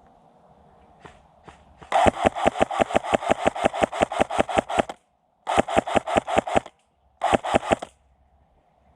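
Airsoft rifle firing on full auto, rapid sharp shots at about ten a second: a long burst of about three seconds, then two shorter bursts. One or two single shots come shortly before.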